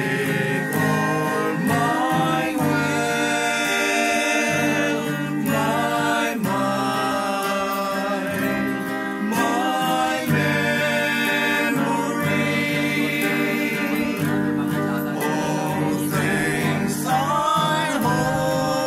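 Voices singing a Cebuano offertory hymn together, accompanied by a strummed acoustic guitar.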